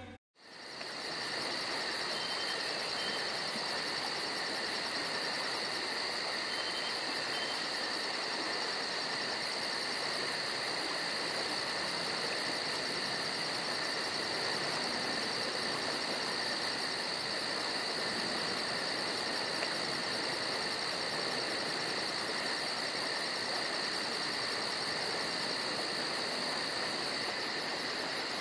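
Steady insect chorus, with several unbroken high tones and a fast pulsing above them.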